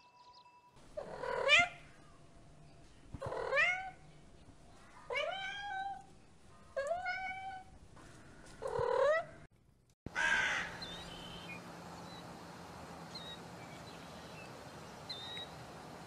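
A kitten meowing five times, each call rising in pitch, about two seconds apart; the first is the loudest. After about ten seconds it gives way to a steady outdoor hiss with a few faint short chirps.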